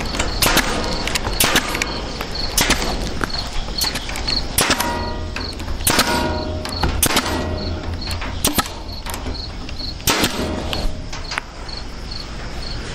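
Staple gun firing staples through hardware cloth into a wooden tractor frame: sharp snaps at irregular intervals, about one a second. Crickets chirp steadily underneath.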